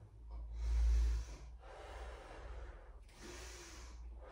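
A woman breathing slowly and deeply in and out, three long breaths with short pauses between them, as in paced yoga breathing. The first breath is the loudest and has a low rumble.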